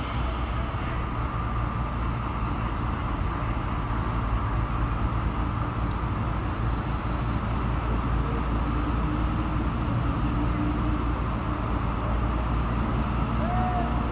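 BDŽ Class 75 Henschel narrow-gauge diesel locomotive running with a steady low drone as it moves its train slowly toward the listener.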